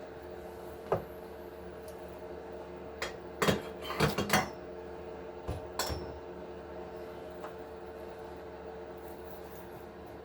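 Small hard RC axle parts (gears and plastic housing pieces) clicking and clattering as they are handled: one click about a second in, a quick cluster of clinks between three and four and a half seconds in, and two more about six seconds in.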